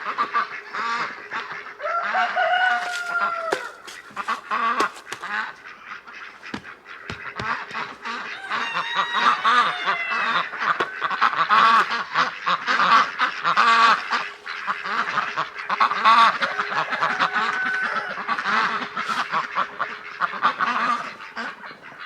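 A group of domestic ducks quacking and calling over one another, many short calls in quick succession, busiest in the middle of the stretch.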